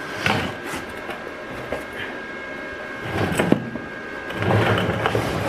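Scattered clicks, knocks and rustles of welding gear being handled, with gloves and a welding helmet, under a faint steady high whine. The handling noise grows louder and busier near the end.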